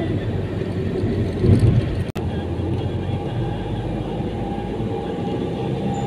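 Steady low rumble of a moving vehicle, with a brief dropout in the sound about two seconds in.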